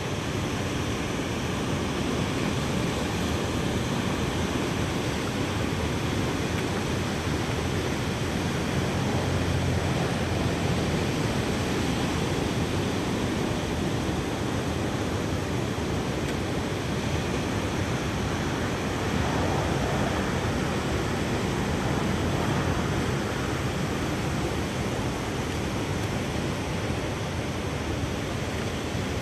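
Steady rushing noise of wind and ocean surf, unbroken and even throughout.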